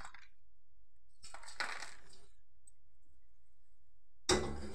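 Roasted peanuts rattling out of a stainless steel pot onto a paper plate in a short burst about a second in, then a sudden metallic clunk near the end as the emptied pot is handled.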